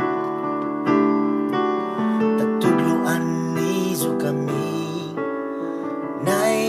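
Background music: a slow song's instrumental passage led by piano and keyboard chords.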